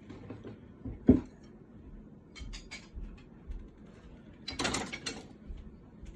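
Small objects being handled: a sharp knock about a second in, a few light clicks, then a longer scraping rustle near the end.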